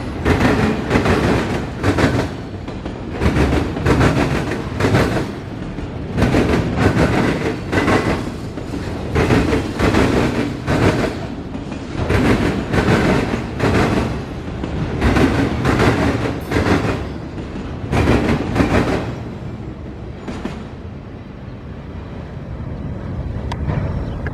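Freight train of autorack cars rolling past close by: a steady rumble, with the steel wheels clicking and clunking in a regular rhythm as they cross joints in the track. About twenty seconds in the clicking thins out and the rumble fades as the last cars pass and the train moves away.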